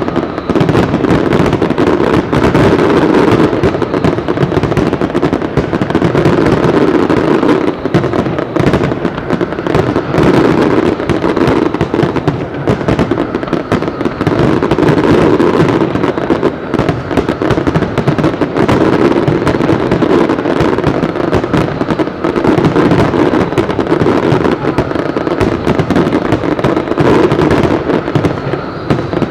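Aerial fireworks display: a dense, continuous barrage of firework shell launches and bursts, many bangs a second with no pause.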